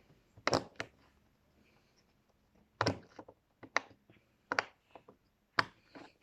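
A fish-shaped fidget toy being pressed with the fingers: about six short, sharp pops spaced irregularly.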